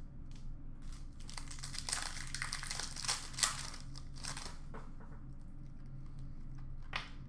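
Foil wrapper of a Panini Prizm UFC retail trading-card pack crinkling and tearing as it is ripped open, dense from about a second in and dying down after about five seconds, with a single sharp click near the end. A steady low hum runs underneath.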